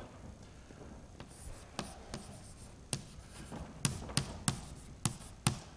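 Chalk writing on a blackboard: a string of short, sharp taps and scrapes, starting about two seconds in and coming faster in the second half.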